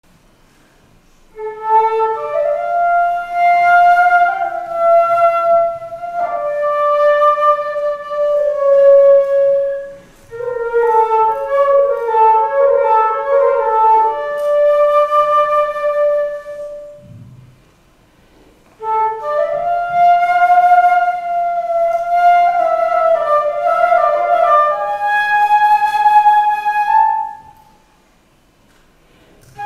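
Flute playing a melody in three phrases, with short silent pauses between them.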